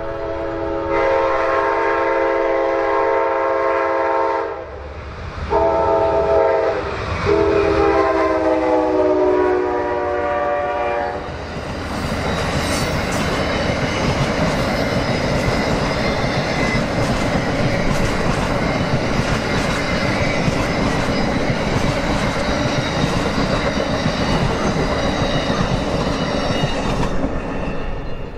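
Amtrak Lake Shore Limited passenger train sounding its multi-chime horn in three blasts, the third falling in pitch as the locomotive passes. Then the steady rumble and clatter of the passenger cars' wheels running by, which drops away near the end as the train clears.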